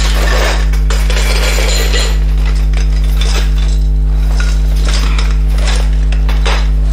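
Metal kayak frame tubes clinking against one another as they are pulled from their fabric bag and laid on the floor, with rustling of the bag, over a loud steady low hum.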